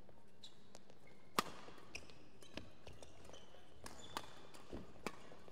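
Badminton rally: rackets striking the shuttlecock in sharp cracks every half second or so, the loudest about a second and a half in, with short squeaks of shoes on the court floor between hits.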